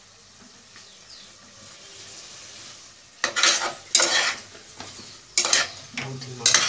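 Onions, chilli and capsicum frying in oil in an aluminium pot over a high gas flame, a faint steady sizzle. From about three seconds in, a spoon scrapes and clanks against the pot several times as the vegetables are stirred.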